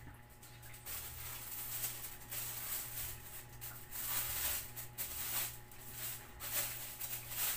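Plastic sheet rustling and crinkling in irregular bursts as cats feed from it, over a low steady hum.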